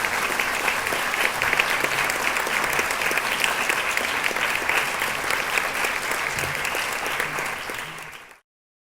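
Audience applauding, a steady clatter of many hands clapping that tapers a little and then cuts off abruptly about eight seconds in.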